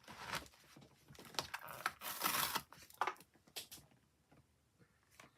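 Paper and craft materials being handled on the desk: a run of short rustles and scrapes that dies away about four seconds in.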